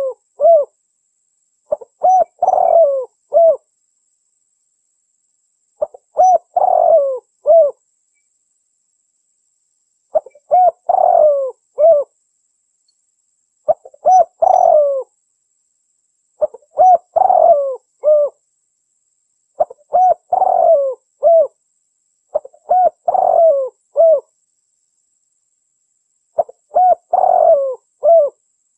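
Dove cooing from a bird-lure recording: phrases of three to five low coos, each about two seconds long, repeating every three to four seconds. The gaps between phrases are completely silent, as in an edited, looped lure track.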